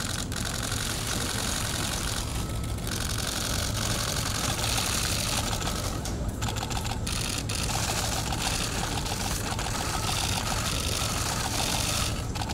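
Many press cameras' shutters firing in rapid bursts, a dense, continuous clatter of clicks over a steady low hum.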